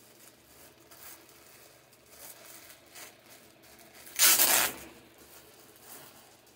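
Soft crinkling of clear plastic packaging bags being handled, then a loud tear about four seconds in, lasting about half a second, as one bag is ripped open.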